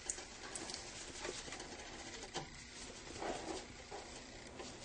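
Faint soft clicks and sloshes of a pot of pozole broth being stirred to work in chili powder, a few scattered ticks through it.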